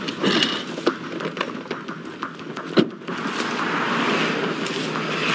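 Scattered clicks and knocks, then from about three seconds in a steady rustle of someone pushing on foot through dry grass and brush.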